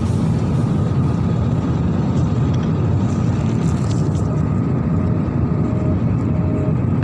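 Jet airliner cabin noise: a steady, even roar of the engines and airflow heard from inside the passenger cabin.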